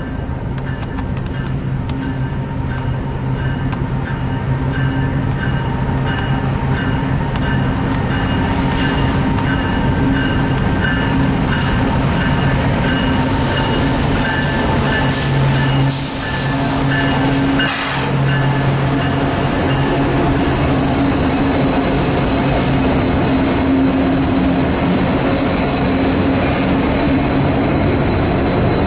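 Union Pacific diesel locomotives hauling a double-stack container train pass close by, the low drone of their engines growing louder, then the stack cars roll past with a rumble. A thin, steady high wheel squeal runs through the second half.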